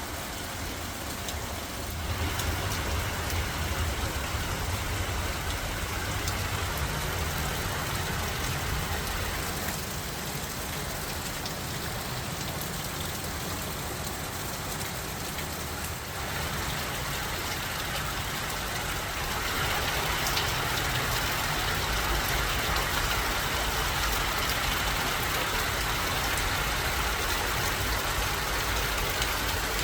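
Heavy rain pouring down, a steady hiss that grows louder about two seconds in and again a little past the middle, over a low steady rumble.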